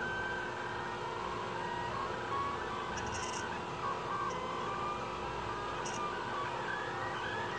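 Delta 3D printer printing: its stepper motors whine in tones that keep jumping up and down in pitch as the print head moves, over a steady hum.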